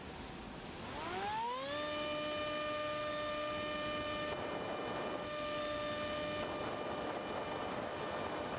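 Electric motor and pusher propeller of a Multiplex EasyStar RC plane whining in flight. About a second in it speeds up, its pitch rising quickly, then runs at a steady pitch over a rush of wind noise.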